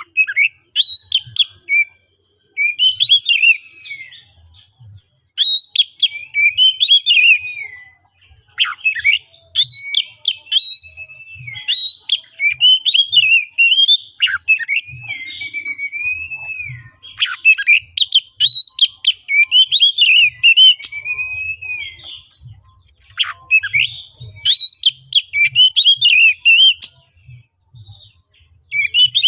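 Oriental magpie-robin (kacer) singing a loud, varied song of whistled glides and rapid chattering, clicky notes, in bursts of a few seconds with short pauses between them. It is the persistent, worked-up song of a bird in fighting mood.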